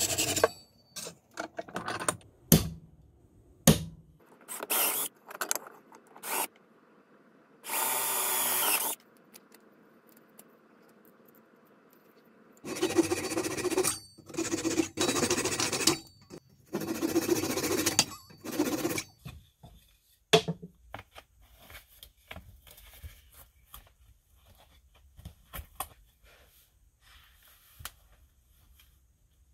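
Fine-toothed hand saw cutting through a wooden dowel in several short runs of strokes, with sharp knocks and clicks of wood and tools between them. The last third holds only faint rustling and light clicks.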